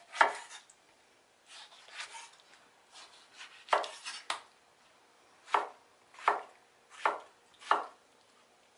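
Kitchen knife slicing through a large tomato and knocking on a wooden cutting board. The strokes are uneven at first, then settle into steady knocks about every three-quarters of a second in the second half.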